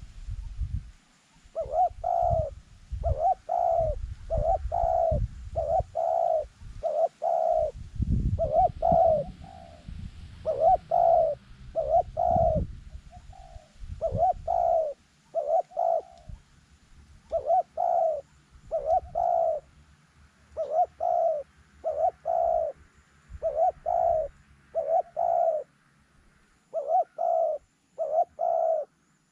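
A dove cooing over and over in short, even notes, often in pairs, with brief pauses between runs. Low rumbling handling or wind noise underlies the first half.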